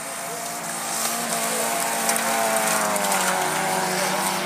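Stock hatchback race car engines running at high revs on a dirt autograss track, getting louder about a second in as the cars close in, their pitch dipping slightly around three seconds in as they pass close by.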